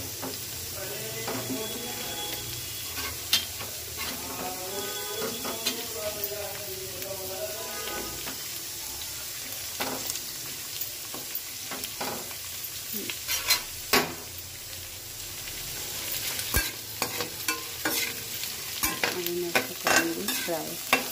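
Cut okra sizzling as it fries in a little oil in a steel kadhai, with a steady hiss. A metal spatula clinks and scrapes against the pan as the okra is stirred, more often in the second half.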